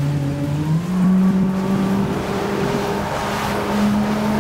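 Outboard motor on a small fishing boat running under way. Its engine note steps up in pitch about a second in and then climbs slowly, over a steady rush of wind and water.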